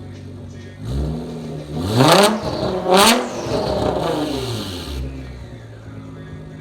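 Nissan R35 GT-R's twin-turbo 3.8-litre V6 idling, then blipped twice in quick succession about two and three seconds in, the revs sinking back to idle by about five seconds in. A faint high turbo whistle trails off as the revs drop.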